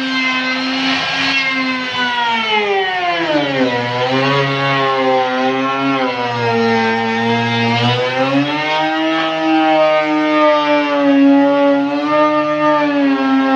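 Handheld electric plunge router whining as its bit cuts a molding profile into a wooden board. Its pitch sags about three and a half seconds in as the motor slows under the cut's load, then climbs back to full speed around eight seconds in.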